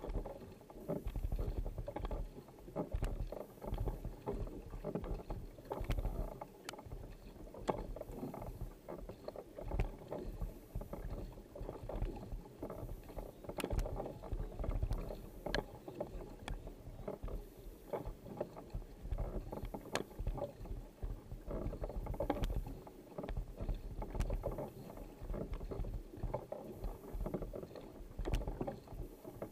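Kayak being paddled hard: the paddle blades catch and splash into the water in a steady rhythm, alternating sides, over the rush of water along the hull.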